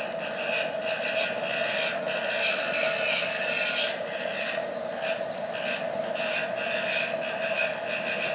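Wood-pellet burner of a stainless-steel portable pizza oven burning with a fast, irregular crackle, over the steady hum of its small DC blower fan running at reduced voltage.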